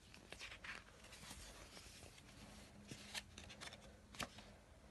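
Faint rustling and light taps of a paperback picture book being opened and its pages turned, with one sharper tap a little past four seconds.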